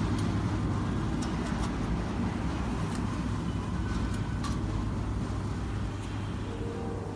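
Steady low mechanical hum, with a few light metal clicks as a capsule stopper is fitted by hand onto the roller of a blister packing machine.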